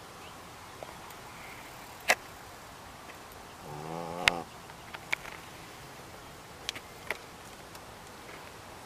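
A dog snoring: one pitched, drawn-out snore lasting under a second about four seconds in. Several sharp clicks fall around it, the loudest just after two seconds and right at the end of the snore.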